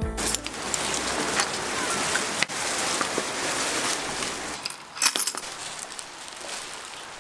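Metal keys jingling and a door lock clicking as a front door is unlocked and opened: one sharp click about two and a half seconds in and a cluster of clicks about five seconds in. A steady rain hiss runs under it and drops away after the second clicks.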